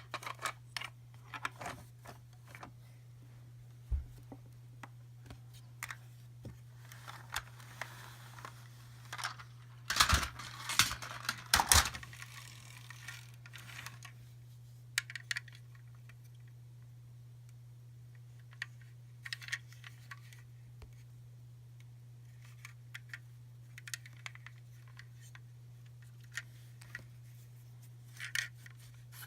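Hands handling small plastic toys and packaging: scattered light clicks and taps, with a louder burst of rustling and clattering about ten seconds in. A steady low electrical hum runs underneath.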